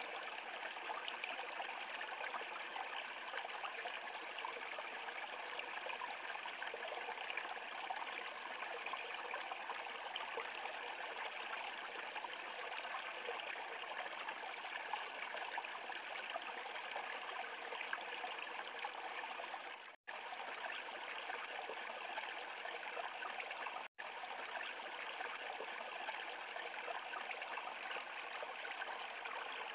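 A small stream rushing and splashing steadily over rocks into a pool. The sound cuts out for an instant twice, about two-thirds of the way through and again a few seconds later.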